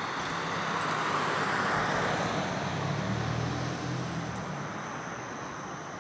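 A car passing on the street: tyre and engine noise swells and then fades away, with a low engine hum partway through.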